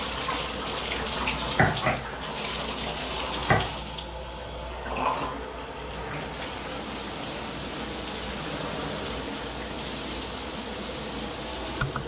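Water spraying from a round rainfall shower head and falling onto a tiled shower floor: a steady hiss of water. Two short knocks sound in the first few seconds.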